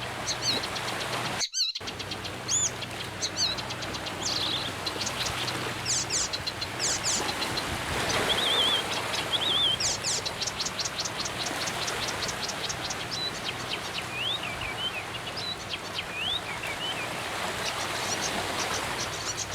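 Several wild birds singing and calling at once, with chirps, whistled slurs and a fast trill of repeated notes over a steady background hiss. The sound cuts out completely for a moment about a second and a half in.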